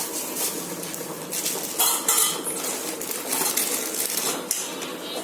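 Kitchen utensils and cookware clinking and clattering in a series of short knocks, loudest about two seconds in.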